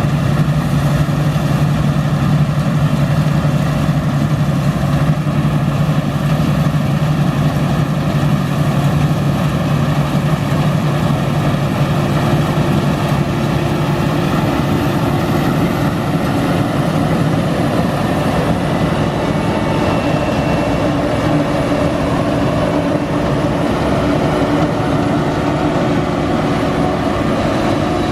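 Large diesel engine of farm machinery running steadily, loud and close, with a strong low drone; a higher steady note joins about halfway through.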